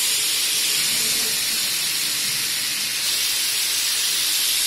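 Tap water running steadily into a stainless steel sink, a constant hiss.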